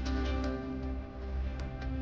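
Instrumental background music: sustained chords over a strong low bass, with light percussive hits every fraction of a second.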